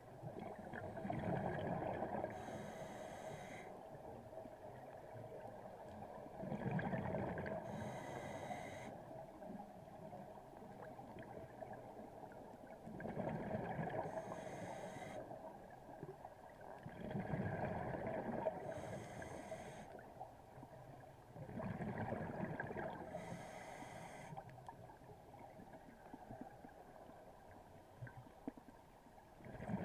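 Scuba diver breathing through a regulator underwater: about five breaths, one every four to six seconds, each a surge of bubbling rumble that ends in a short hiss.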